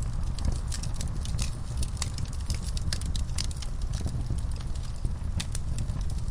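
Wood fire in a fireplace crackling, with frequent irregular sharp pops over a steady low rumble of flames.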